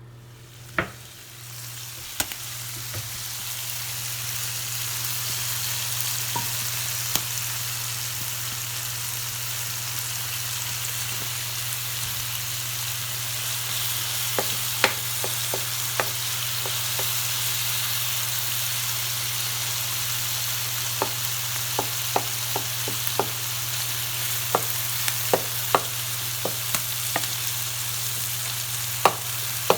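Food sizzling in a hot pan: a frying hiss that swells over the first few seconds and then holds steady, with sharp clicks and taps scattered through, more of them in the second half, over a steady low hum.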